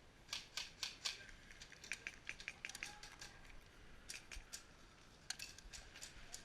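Faint airsoft gunfire: scattered sharp snaps and clicks, some in quick runs of several shots, from guns being fired around the field.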